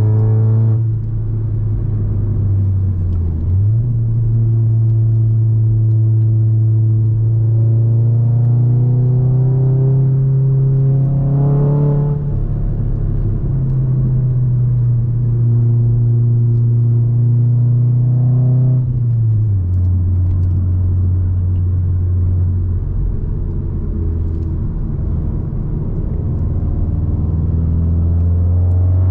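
Volkswagen Golf 7R's turbocharged four-cylinder engine running steadily under load while driving. Its pitch steps up and down a few times as the revs change, with a quick rise in revs about twelve seconds in.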